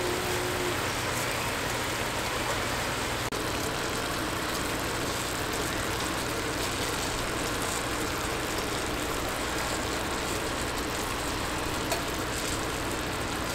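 Fish simmering in sauce in a pan, making a steady sizzling hiss, with a low steady hum underneath.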